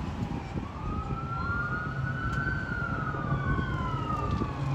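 An emergency vehicle's siren wailing, its pitch slowly rising and then falling, with a second overlapping wail and a low steady hum underneath.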